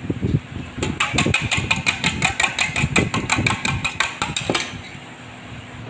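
A fork beating raw eggs in a small stainless steel saucepan, clinking rapidly against the metal sides at about eight strokes a second, then stopping about a second before the end.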